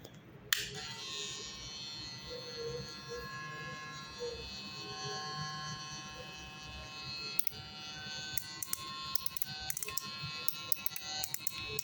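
Cordless electric hair clipper switched on about half a second in, its motor running with a steady whine. Sharp clicks and rattles come in the second half.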